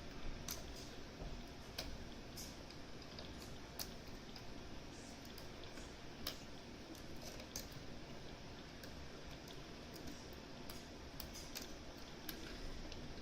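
Light, irregular metallic clicks and ticks of thin steel picking tools and a tension wrench working the discs inside a Mosler M5700 safe deposit box lock, over a faint steady hiss.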